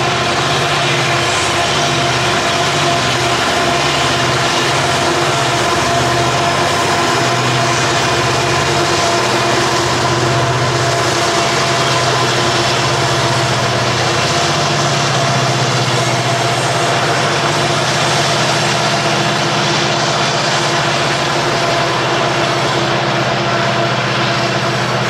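Diesel freight locomotives running, a loud steady drone with several held engine tones over a wide rumble of train noise.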